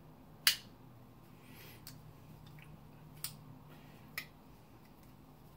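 Handling noises as a knife and its packaging are worked open: a few sharp clicks and taps. The louder ones come about half a second in, just past three seconds and just past four seconds, the first being the loudest.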